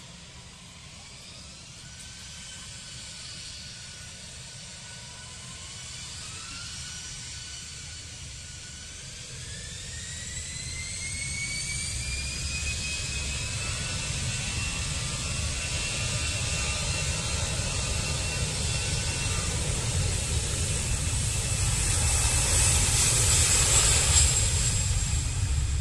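Citilink Airbus A320's jet engines spooling up for take-off. A whine climbs in pitch in several steps, and the engine noise grows steadily louder, loudest near the end as the jet rolls past close by.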